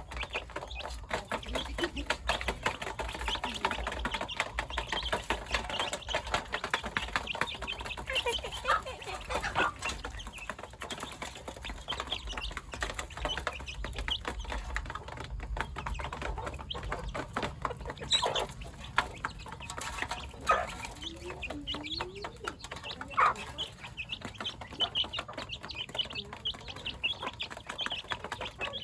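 Chickens clucking, with a busy patter of small knocks and scratches, and a few short calls in the second half.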